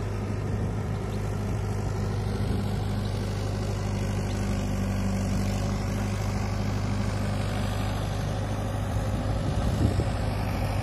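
Tractor diesel engine running steadily at a constant speed, a low even hum.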